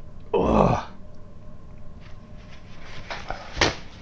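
A man clearing his throat once, about half a second in, with a sound that drops steeply in pitch as he reacts to the burn of a Carolina Reaper pepper. A brief, sharp noise follows near the end.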